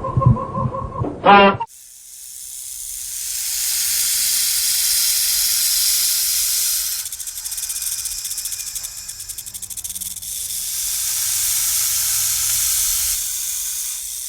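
An animal hissing: a long breathy hiss that builds up after a short pitched call in the first second and a half, wavers in the middle and swells again before easing near the end.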